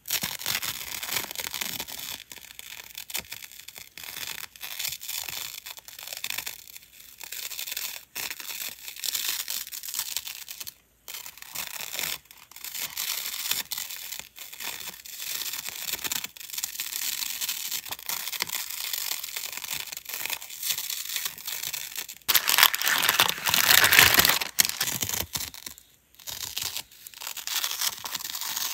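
Clear plastic washi tape being unrolled off its roll and handled, with a crackly peeling sound as the strip comes away from the roll. There is a louder, longer pull about three quarters of the way through.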